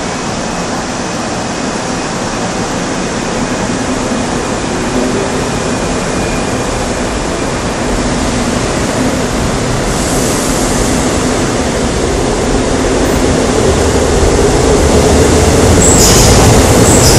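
An old 2000-series Seoul Metro Line 2 electric train pulls out of the station. Its running noise and motor hum build steadily as it picks up speed, and near the end the wheels squeal high and sharp.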